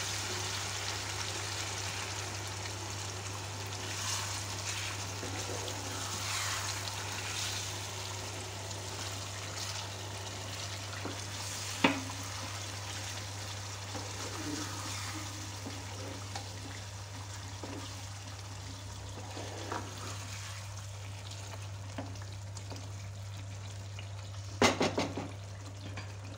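Chicken curry gravy sizzling in a nonstick frying pan, freshly loosened with a little water, while a spatula stirs through it. A single sharp tap of the spatula on the pan comes about halfway, and a few louder knocks near the end.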